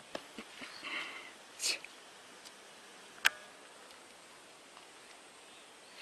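A German Shepherd sniffing and stepping about on loose shore stones: faint clicks of stones underfoot, a short sniff about a second and a half in, and one sharp click a little past three seconds.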